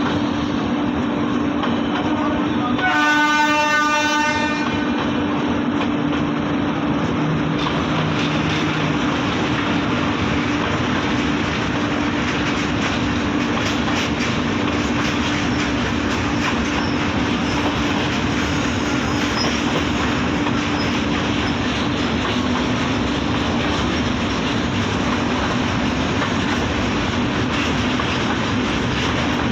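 Indian passenger train running at speed, its wheels clattering over the rail joints under a steady low hum. A locomotive horn sounds once about three seconds in, for about a second and a half.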